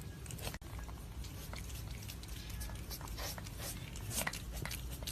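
A pet chewing: irregular small clicks and crunches over a steady low hum.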